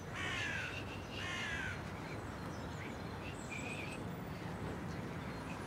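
Bird calling: two harsh, falling caws in the first two seconds, then a few faint high chirps, over a steady low background rumble.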